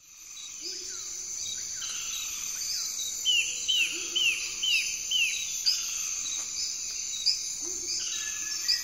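Forest ambience fading in: a steady high insect drone with birds calling over it, including a quick run of five rising chirps about halfway through.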